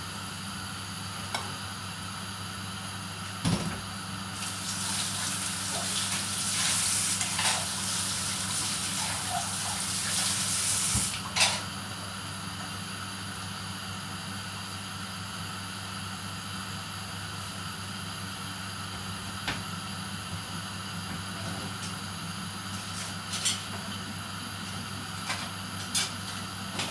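Water running from a kitchen tap for about six seconds, starting about four seconds in and ending with a knock. A steady low hum and a few light clicks and knocks of kitchen handling are heard around it.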